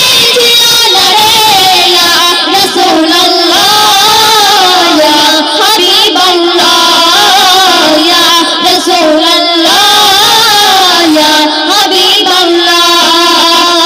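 Two female singers performing a Bengali Islamic gazal (gojol) into handheld microphones, a continuous melodic vocal line with long held notes.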